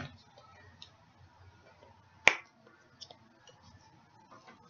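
A single sharp click about two seconds in, with a few faint light taps around it, from kitchen containers and utensils being handled while spices are measured out.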